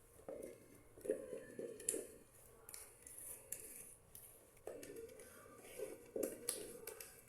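Soft, sticky sweet-bread dough being stirred in a bowl, with faint, irregular scrapes and sticky clicks.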